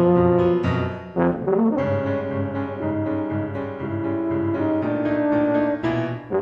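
Yamaha YFB-822 Custom tuba playing a melody of held notes in a rag duet with a Steinway grand piano. A little over a second in, the tuba slides between notes.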